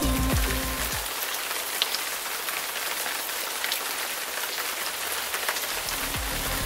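Rain falling: a steady hiss with scattered light drop ticks. Background music fades out about a second in and comes back near the end.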